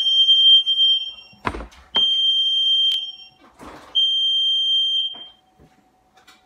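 Household alarm sounding: three long, steady, high-pitched electronic beeps about a second apart. Between the first two beeps there is a thump.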